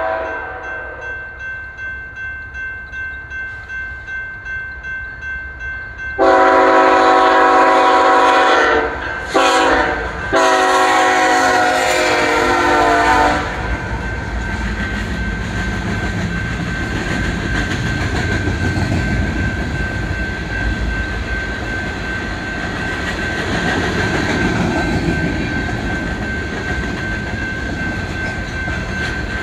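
Diesel locomotive horn on a BNSF freight train sounding three blasts, long, short, long, as the train closes in, after a quieter, evenly pulsing approach. The loaded grain hopper cars then roll past with a steady rumble and clickety-clack of wheels on the rails.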